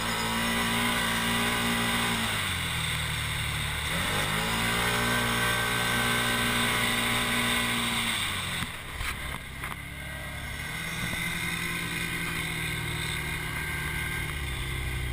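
Side-by-side UTV engine pulling along a sandy beach. Its note holds steady, falls away about two seconds in and climbs back, then drops to a lower steady note a little past the middle as the machine eases off.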